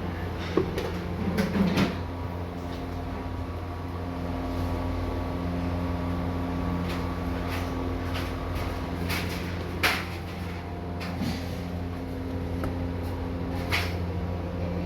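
Steady machine hum with scattered knocks and clicks, the sharpest about ten seconds in and again near the end.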